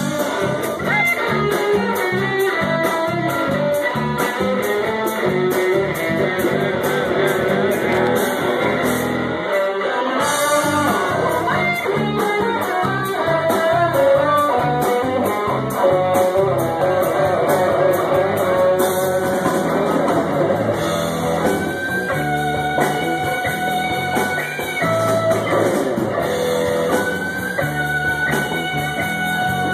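Live band playing an instrumental: electric guitar leading with melodic lines and held notes over djembe and drum kit.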